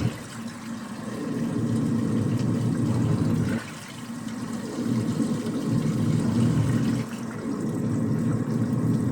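Washing machine spinning, with a steady low hum and a wash of water. The level drops suddenly twice, about half a second in and again a little past three and a half seconds, then builds back up each time.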